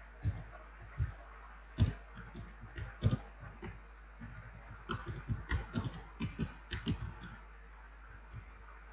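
Typing on a computer keyboard: a few scattered key taps, then a quicker run of keystrokes that stops about seven seconds in.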